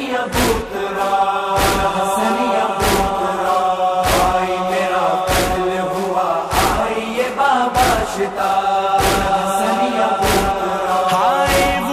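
An Urdu noha, a Muharram lament, chanted by voices holding long notes over a sharp beat that falls about once every second and a quarter.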